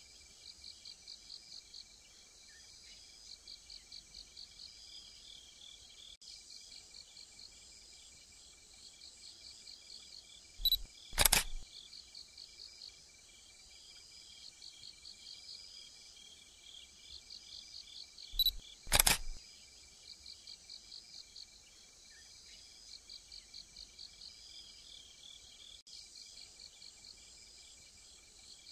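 Crickets chirping in a steady, rapidly pulsing night chorus. Twice, about eight seconds apart, a sharp double click cuts through, the second of each pair the louder.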